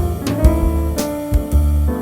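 Background music: a jazzy instrumental with piano or guitar over a bass line and a steady beat.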